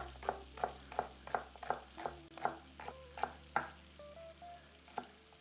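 Large kitchen knife chopping a celery stalk on a wooden cutting board: quick, even chops about three a second, stopping about three and a half seconds in, with one more chop near the end.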